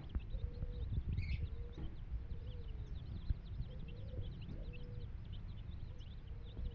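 Many baby chicks peeping in quick, overlapping high chirps, with a lower short note repeating about once a second and a low rumble underneath.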